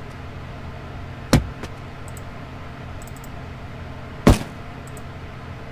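Two sharp clicks or knocks about three seconds apart, the second the louder, with a few faint ticks between them over a steady low hum.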